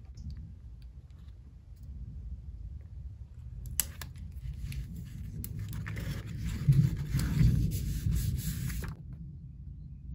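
Paper rustling and rubbing as the patterned craft-paper folder is handled. It starts with a click about four seconds in, is loudest a little past the middle, and stops about a second before the end, over a low steady rumble.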